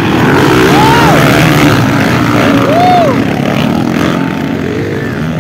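Several motocross dirt bikes running hard at race speed, a loud, dense engine roar. Twice, about one second and three seconds in, an engine's pitch rises and falls as a bike revs up and backs off.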